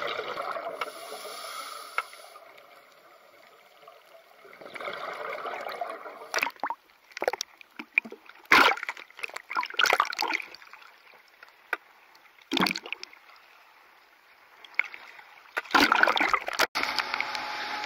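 Seawater sloshing and splashing around a camera bobbing at the surface, with several sharp splashes as small waves wash over it and a steadier rush of water near the end.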